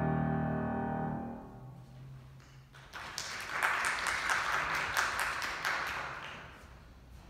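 The final chord of a grand piano ringing on and dying away, then brief applause that starts about three seconds in and fades out near the end.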